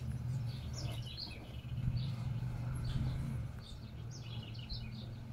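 Small birds chirping repeatedly, in quick clusters about a second in and again past four seconds, over a steady low hum.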